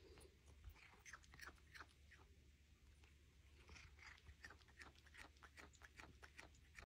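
Cat chewing on a thin cable: faint, quick clicks of teeth on the cable, a few a second, cutting off near the end.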